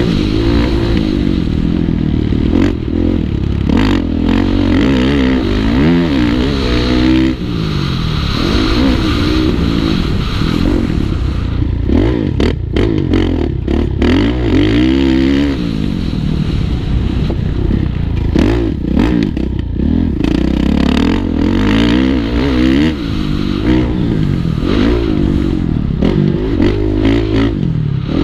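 Kawasaki KX450F motocross bike's single-cylinder four-stroke engine revving hard, its pitch climbing and dropping again and again as the rider accelerates, shifts and backs off around the dirt track. Wind rushes over the helmet-mounted microphone, and there is a run of sharp knocks about halfway through as the bike hits bumps and landings.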